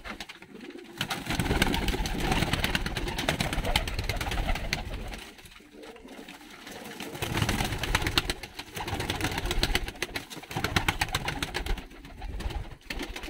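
Domestic pigeons flapping their wings in two long spells of rapid beating, with some cooing, as they are caught and moved by hand on the loft shelves.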